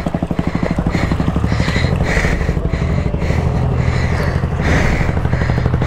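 Motorcycle engine running at a steady idle.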